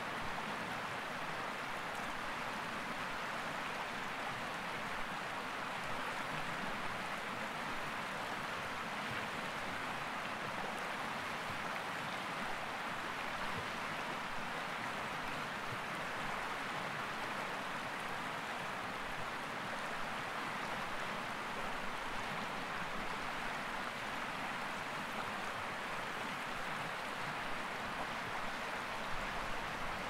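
Mountain river in winter flowing: a steady, even rush of running water with no breaks or changes.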